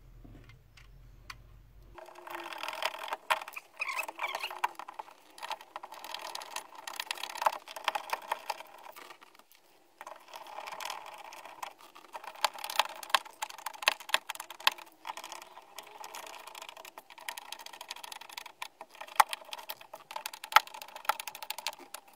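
Hand screwdriver driving the mounting screws of a 16.5 cm component speaker into its plastic adaptor ring in a car door: a long run of fine scratchy clicking as the screws turn, starting about two seconds in, with a short break about halfway.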